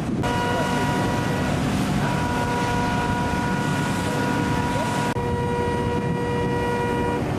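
Fishing boat engines running, a low rumble with a steady pitched whine over it, and wind buffeting the microphone. The hiss of wind and spray drops about five seconds in.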